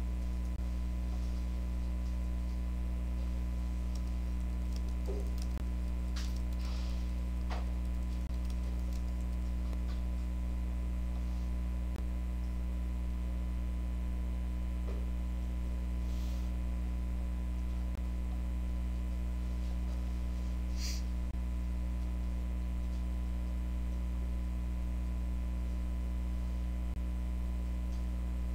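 Steady low hum with a few scattered computer keyboard key clicks as an email is typed.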